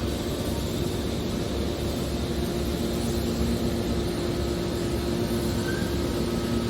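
Scrap metal baler running: a steady machine hum with a low, even whine.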